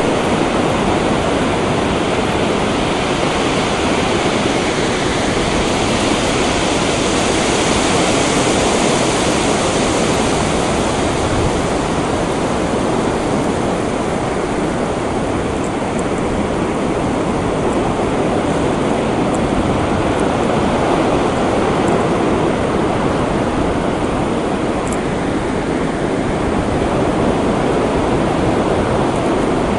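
North Sea surf breaking and washing on a sandy beach: a steady rushing that swells and ebbs slowly over several seconds.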